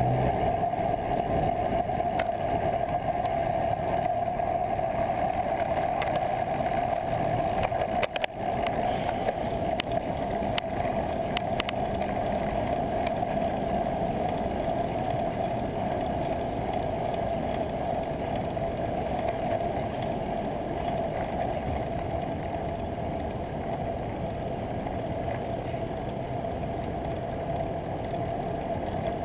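Steady wind and road noise from a moving bicycle, picked up by a bike-mounted GoPro Hero 2, with a few sharp knocks about eight to eleven seconds in.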